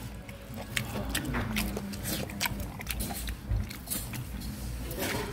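A person eating close to the microphone: irregular chewing and mouth noises with many small clicks and knocks.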